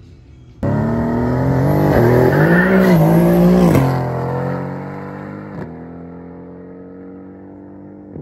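Race car accelerating hard on a quarter-mile run, starting suddenly and loud. Its engine revs climb and dip twice as it shifts gears, then the sound drops away a few seconds in and fades to a fainter steady engine note as the car pulls off into the distance.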